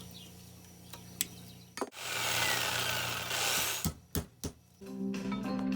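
Tools working on an electric motor's field coil: a few sharp knocks, then about two seconds of harsh scraping or cutting noise, then more knocks. Guitar music comes in near the end.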